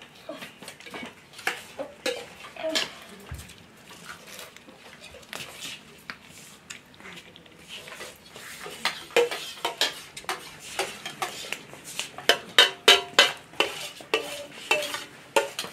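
Utensils clinking and scraping against plates and bowls in many quick, irregular clinks, becoming busier and louder about halfway through.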